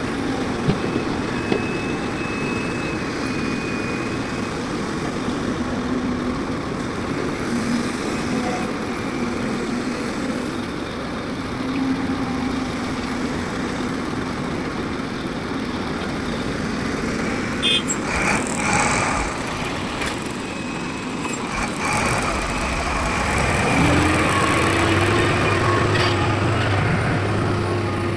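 Motor vehicle noise: engines running steadily under a dense rumble. Near the end an engine hum rises in pitch and then holds steady.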